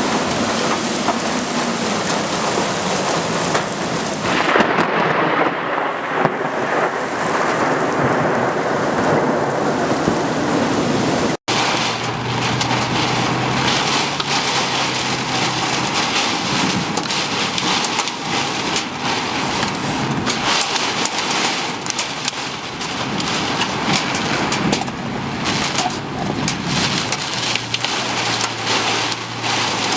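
Heavy rain pouring in a thunderstorm, a continuous loud hiss. The sound cuts out for an instant about 11 s in, and after that a low steady hum runs under the rain.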